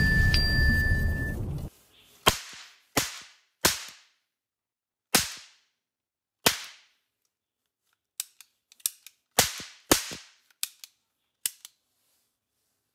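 A channel-intro sound effect, a loud whoosh with a ding, cuts off about a second and a half in. Then a toy cap gun revolver fires sharp cracks: five spaced a second or so apart, then a quicker, irregular run of about ten more.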